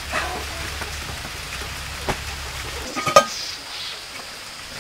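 A knock, then a metal cooking pot clinking and rattling briefly as it is picked up, about three seconds in, over a steady low hiss.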